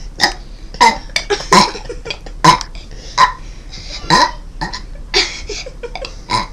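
A young child burping again and again: a string of short, loud burps, roughly one every half second to second.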